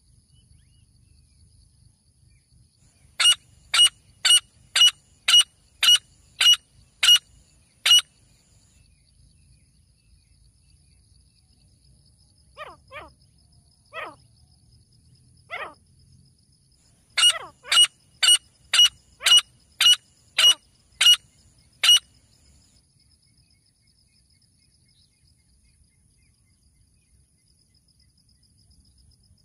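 Male grey francolin calling: two runs of about nine loud, sharp, shrill notes, roughly two a second, with a few softer, lower notes in the pause between them.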